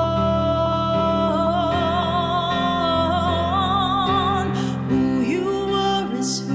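A woman singing a slow worship song over steady instrumental accompaniment: she holds one long note that wavers toward its end, then, after a short breath, starts a new line about five seconds in.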